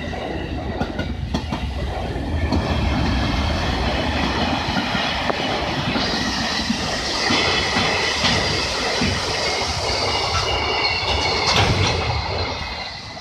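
Freight train of empty ore wagons hauled by an EH500 electric locomotive rolling past, wheels clattering over the rail joints. High-pitched squealing joins in about halfway through, and the sound falls away near the end as the last wagons pass.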